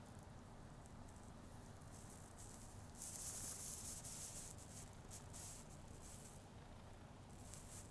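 Faint rustling of a cat's fur brushing against a man's stubbly chin and face as the cat rubs its head on him. It is a soft swish, longest and loudest about three seconds in, followed by a few shorter swishes.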